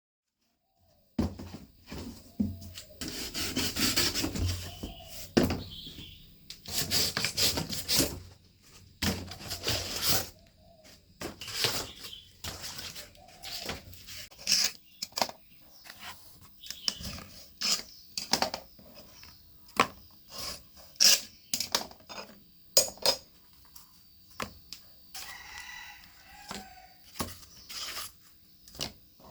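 Hands working cardboard and small parts: long scraping and rubbing strokes in the first several seconds, then a string of irregular sharp knocks and clicks.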